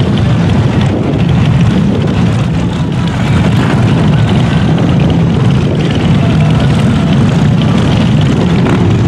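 Many motorcycle engines running together, a loud, steady rumble.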